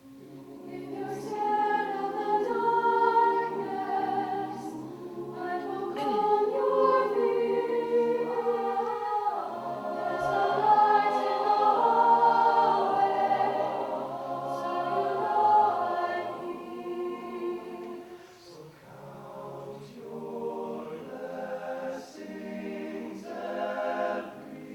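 High school a cappella choir singing in several-part harmony, voices only, with held chords. After about eighteen seconds the singing turns softer, in shorter phrases.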